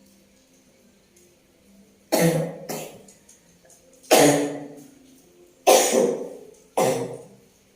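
A woman coughing: four loud coughs, each sudden and then tailing off, the last two closer together. It is a lingering cough that has not cleared up.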